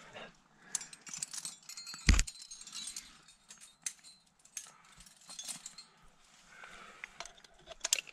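Climbing hardware, carabiners and quickdraws on a harness, clinking and jangling as a climber moves up rock, with scuffs against the rock and one sharp knock about two seconds in.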